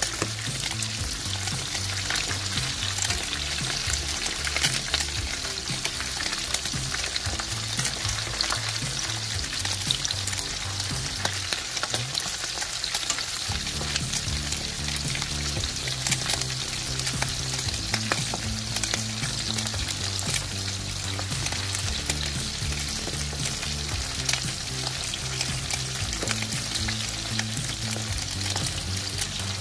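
Pieces of dried salted cá dứa fish frying in hot oil in a pan: a steady sizzle with many small crackles and spattering pops. The oil spits because the fish was fried before it had dried out after soaking.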